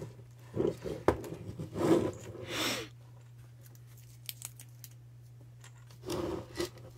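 Handling noises from a metal car-stereo chassis being picked up, turned over and set down on a work mat: a few knocks and clicks, one sharp click about a second in, a brief rustling scrape, and more knocks near the end, over a faint steady hum.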